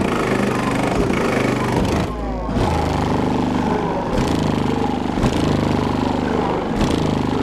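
Bass-heavy music played very loud through a car audio system with two 18-inch subwoofers, the deep bass notes shifting every second or so, with a short drop to bass alone about two seconds in.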